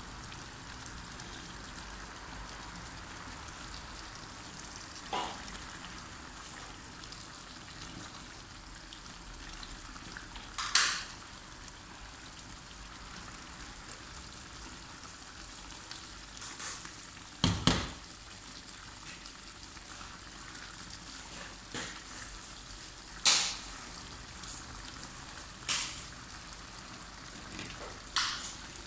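A pan of tomato stockfish stew simmering and sizzling on a gas burner with a steady hiss, broken by a handful of sharp knocks, about six, the loudest about two-thirds of the way through.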